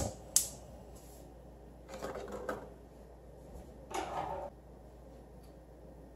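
A gas stove's spark igniter clicks sharply as the burner lights. Then come two short rattling scrapes, about two and four seconds in, as a kitchen drawer is opened and metal tongs are taken out.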